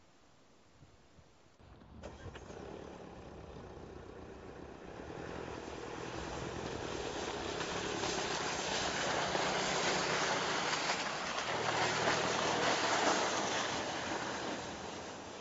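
Mercedes-Benz E-Class All-Terrain estate driving over snow: engine running and tyres on the snowy track. It starts abruptly about two seconds in, grows louder as the car approaches, is loudest as it passes close near the end, then begins to fade.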